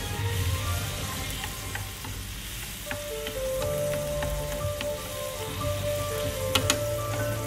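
Tomato sauce with tofu simmering and sizzling in a non-stick frying pan while it is stirred with wooden chopsticks, with two sharp clicks about six and a half seconds in.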